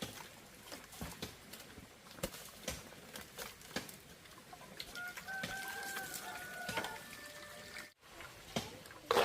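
Scattered light knocks and clicks, with one drawn-out bird call lasting about two seconds, starting about five seconds in.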